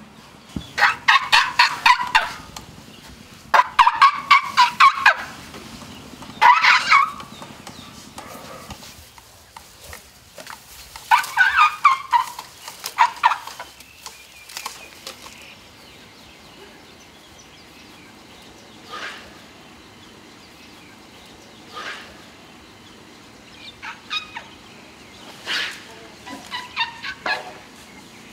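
Asian elephant calves chirping in happy greeting: bouts of rapid, high squeaky pulses. There are four loud bouts in the first half, then fainter, shorter calls spaced out toward the end.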